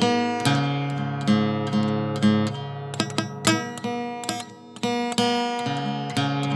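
Background music on acoustic guitar: strummed chords and picked notes in a repeating pattern, with a brief drop in level about four and a half seconds in.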